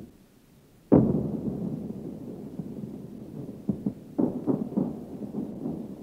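Anti-aircraft gunfire in a 1941 air-raid recording: a single heavy boom about a second in that rumbles away slowly, then a quick cluster of sharper, duller reports between about three and a half and five and a half seconds in.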